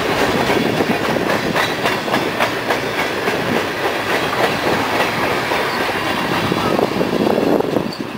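Freight cars of a passing train rolling by close, steel wheels clattering and clicking over the rails in an irregular clickety-clack.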